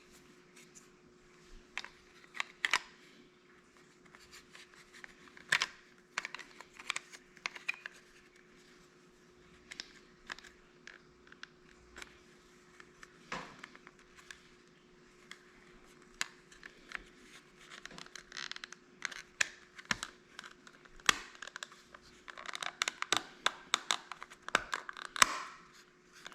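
Plastic clicks, taps and scraping of a garage door keypad's back covers being handled, fitted and pressed back into place, with the clicking growing denser near the end as the covers snap together.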